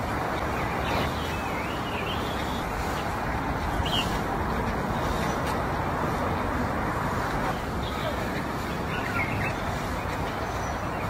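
Steady outdoor background noise, a rumble and hiss like distant traffic or crowd murmur, with a few faint bird chirps.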